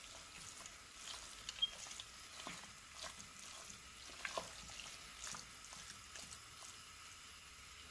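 Lamb mince being stirred with a spoon in a stainless steel pot over high heat. Scattered light scrapes and knocks of the spoon against the pot sound over a faint sizzle of the frying meat.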